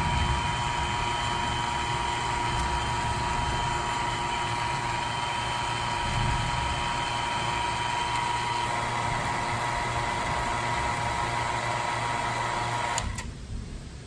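A 4 CFM HVAC vacuum pump runs steadily with a low hum and a whining tone while pulling a vacuum on the gauge manifold hoses. The sound cuts off suddenly about a second before the end.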